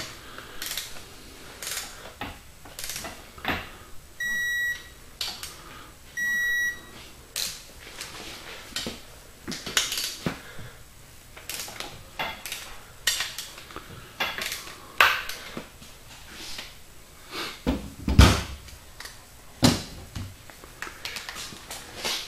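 Torque wrench ratcheting and clicking on connecting-rod cap nuts, with metal clinks. Two short electronic beeps about four and six seconds in, the wrench signalling that the set torque is reached. A heavy thump near eighteen seconds is the loudest sound.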